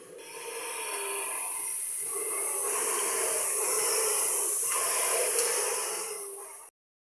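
Dinosaur roar sound effect: a long hissing growl that swells over the first couple of seconds and cuts off abruptly near the end.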